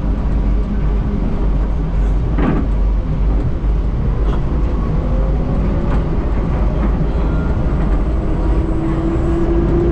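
Skylink automated people-mover train, a rubber-tyred car on a concrete guideway, running with a steady rumble heard from inside the car. A single short knock comes about two and a half seconds in, and a whine rises in pitch near the end.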